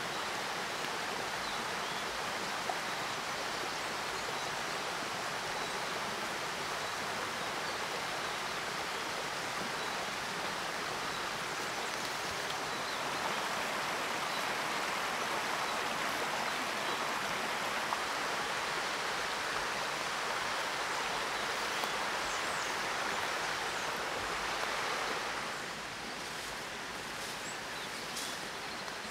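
Steady rushing of a forest stream, a little louder in the middle, then dropping to a softer background about 25 seconds in, with a few faint clicks near the end.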